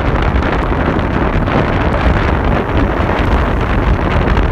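Wind buffeting the microphone of a camera moving along a city street, a loud, steady rushing noise with road and traffic sound beneath it.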